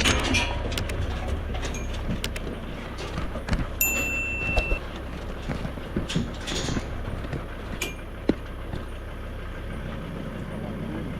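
A ute's engine running steadily, with scattered knocks and clinks over it and a short high tone about four seconds in.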